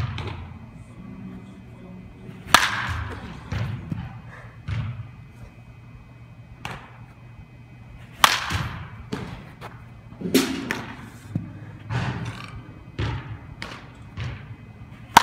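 Baseball bat striking pitched balls in batting practice: three sharp cracks about six seconds apart, the last the loudest. Softer knocks fall between them.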